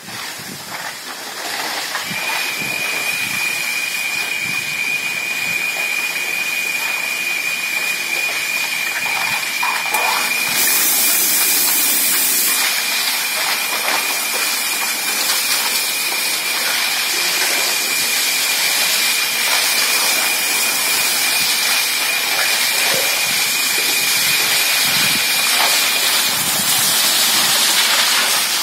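Electric walk-behind power trowel running with its pan turning on wet concrete: a steady rushing noise, with a thin high whine that comes in about two seconds in and stops a couple of seconds before the end.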